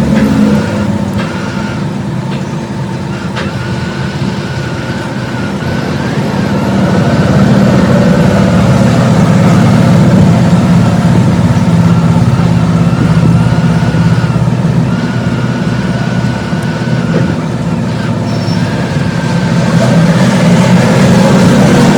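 Hot air rework gun blowing steadily, heating the solder to seat a new charging port on a phone's circuit board. It has a low hum with a wavering whine on top and grows louder about seven seconds in.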